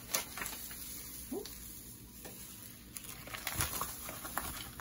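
Meat sauce simmering in a pot with a faint sizzle, and a few scattered light taps and clicks of kitchen utensils and containers as sugar is added to it.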